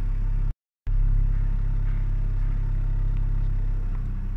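Hyundai Sonata four-cylinder engine idling steadily at a normal idle, now that the broken intake hose that let it suck in outside air and race has been replaced. The sound cuts out completely for a moment about half a second in, then carries on unchanged.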